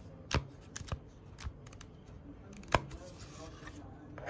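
Sheets of paper in a clipped notebook being turned over by hand, with a few sharp paper snaps and rustles. The loudest snap comes about two-thirds of the way in.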